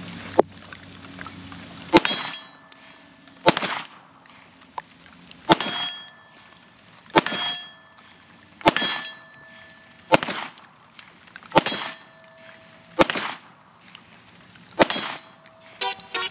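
Springfield Armory 1911 DS Prodigy 9mm pistol fired in slow, steady single shots, about nine in all, roughly one every second and a half. Each shot has a sharp crack and a short metallic ring after it.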